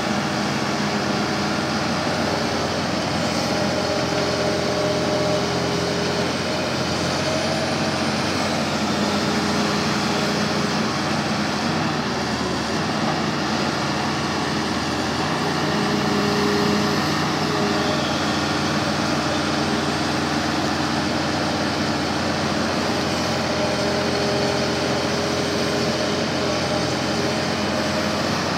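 Hitachi Zaxis 350 LCH excavator's diesel engine running steadily under working load as the machine digs and pushes earth with its bucket. The engine note shifts in pitch a few times.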